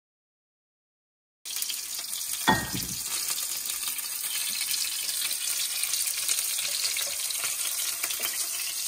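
Strips of fish sizzling as they fry in oil in a frying pan, a steady hiss that starts after about a second and a half of silence. A single knock sounds about a second after the sizzling begins.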